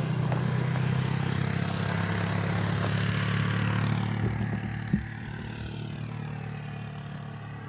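Propeller airplane passing overhead: a steady low engine drone with a rushing hiss that builds to a peak a couple of seconds in, then fades from about five seconds on. One short click sounds about five seconds in.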